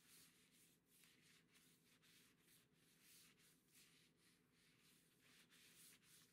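Near silence, with faint, soft swishes of a lens wipe rubbing back and forth over a Chromebook screen.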